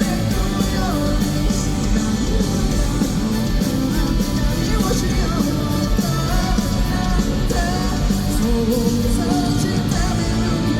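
Live rock band playing loud and steady, with a singer over electric guitars, heard from the audience at an arena concert.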